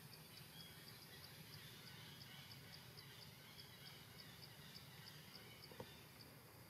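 Near-silent forest ambience: a low steady hiss with a faint, high chirp repeating evenly about four times a second, and one soft tap near the end.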